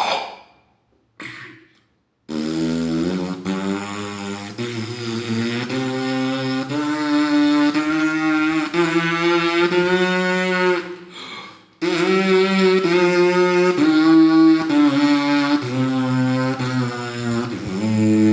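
Trombonist's lips buzzing without the instrument, playing a scale as a warm-up, note by note in steps. The buzz is played in two long phrases with a short break for breath about 11 seconds in.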